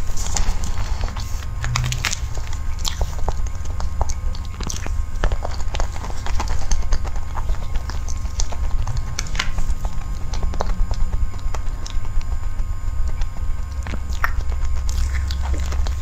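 Close-miked eating sounds: a metal spoon clicking and scraping against a cake board and soft sponge cake being eaten, in many short sharp clicks over a steady low rumble from the clip-on microphone.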